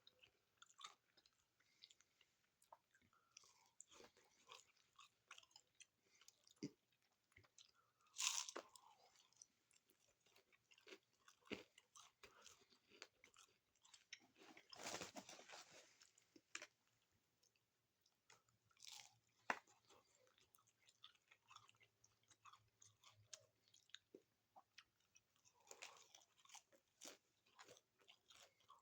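Quiet chewing and crunching of a Doritos Locos taco's hard Doritos-flavoured shell, a scatter of small crackles with a few louder crunches, the longest about 15 seconds in.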